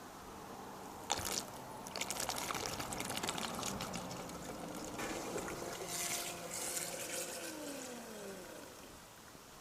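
Water splashing and pouring, starting about a second in, with a few steady tones in the later part that slide down in pitch near the end.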